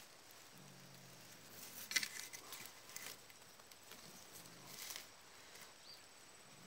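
Dry grass, ferns and leaf litter rustling and crackling as someone pushes through undergrowth, in a few short bursts, loudest about two seconds in. A faint low drone comes and goes underneath.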